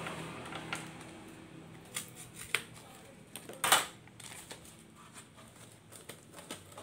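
Corrugated cardboard being handled for packing: a cut cardboard strip slid into a box, with scattered taps and clicks and one louder scrape about three and a half seconds in.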